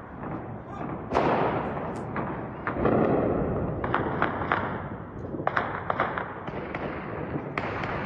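Gunfire: two longer loud noisy bursts in the first half, then a string of separate sharp shots.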